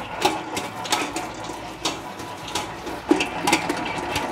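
Electric stand mixer running, its beater kneading bread dough in a stainless steel bowl. The motor gives a steady hum, and the dough slaps and knocks irregularly against the bowl several times a second.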